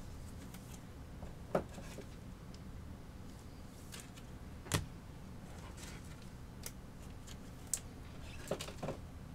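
Baseball cards being handled and set down: a few light, scattered taps and clicks, the sharpest about halfway through, over a steady low hum.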